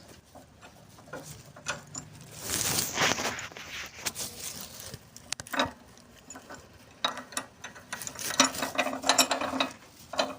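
Ratchet wrench clicking in short runs, with light metal knocks, while a front sway bar stabilizer link is worked into place; the clicking is busiest near the end.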